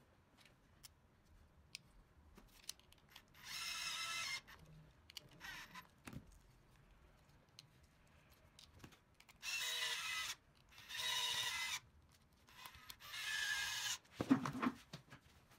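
Cordless electric screwdriver whining in four short runs of under a second each, driving small screws into a plastic RC-kit part. Light clicks of screws and parts being handled come between the runs, and a few knocks near the end.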